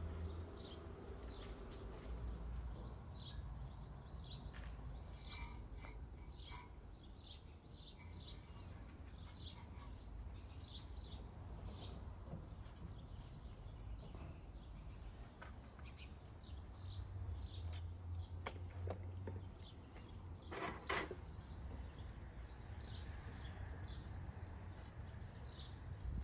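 Small birds chirping over and over, short high calls scattered all through, over a low steady background rumble. A couple of sharp knocks come about three-quarters of the way through.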